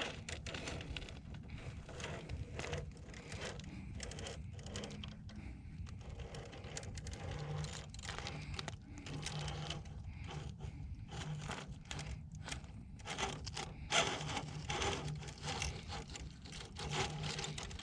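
RC rock crawler crawling over rocks: its brushed electric motor and gears hum in short bursts, with scraping and clicking from the tyres and chassis on the rock.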